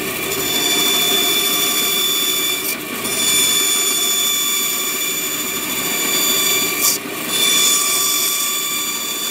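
Bandsaw running, its blade cutting straight relief cuts into a small piece of plywood: a steady high whine over sawing noise, with a brief change in the sound twice, about three and seven seconds in.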